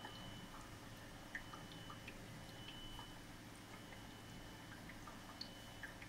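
Faint bubbling of air-driven sponge filters in an aquarium: scattered small ticks and drips of bubbles at the water surface over a steady low hum.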